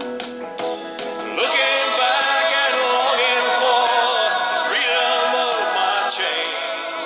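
Music: a slow ballad between sung lines, with a long held, wavering melody line over sustained chords.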